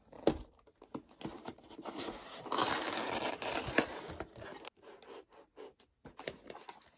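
Cardboard mailer box being opened by hand: a sharp click just after the start, then about two seconds of steady scraping as the taped lid is pulled open, another click near four seconds, and lighter rustling of the cardboard flaps after that.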